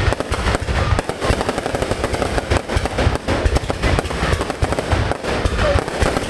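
Fireworks display going off: a continuous dense crackle of many sharp bangs a second over deep, rumbling booms, with no let-up.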